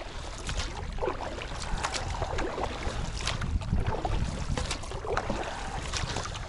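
Inflatable boat being rowed across a lake: repeated splashes of oar strokes in the water. A steady low rumble of wind on the microphone runs underneath.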